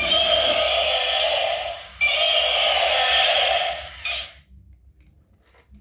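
Electronic sound effect from a battery-powered toy vehicle's small speaker: two long, steady, buzzy tones of about two seconds each, cutting off about four seconds in, followed by a few faint clicks.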